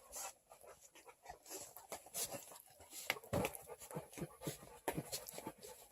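A dog moving about, with faint scattered clicks and taps.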